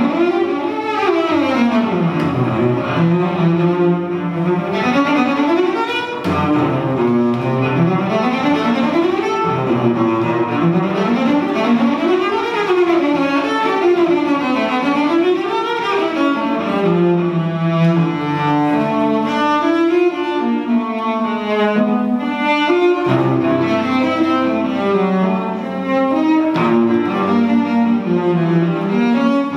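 Solo cello played with the bow, in flowing runs of notes that repeatedly climb and fall.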